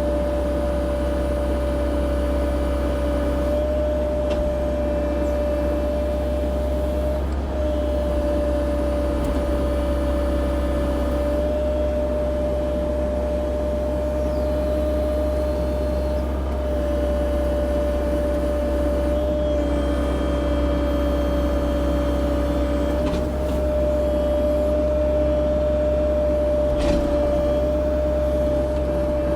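Cat 304 E2 mini excavator's diesel engine running steadily, a low drone with a constant whine over it, and a couple of faint knocks late on.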